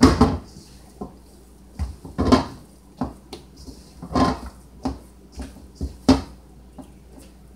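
Hands kneading sticky bread dough in a stainless steel mixing bowl: thuds and clatter of the metal bowl, four loud knocks about two seconds apart with softer ones between.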